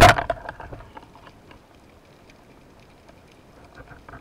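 Twin-band speargun firing underwater: one sharp, loud crack, followed by a rattle of the shaft and line that dies away over about a second.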